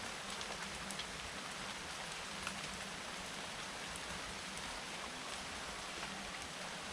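Steady rain falling, an even hiss with scattered individual drops ticking against a surface.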